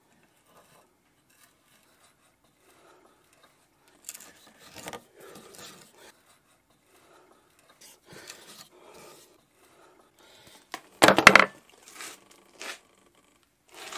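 Hand brace with a spiral auger bit boring through the wooden rake head: a rasping, grinding scrape in uneven strokes as the bit is turned and chews out the wood, starting a few seconds in. Near the end there is a sharper, louder clatter.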